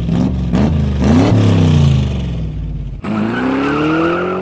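A car engine revving up and down. Then an abrupt cut about three seconds in to another stretch of engine sound, rising steadily in pitch as it accelerates.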